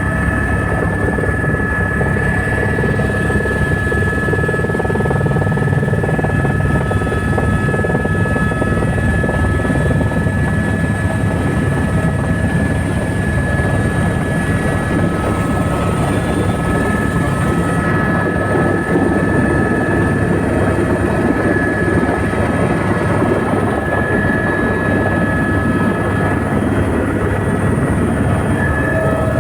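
Helicopter running steadily: a fast, even rotor beat with several steady high whining tones over it.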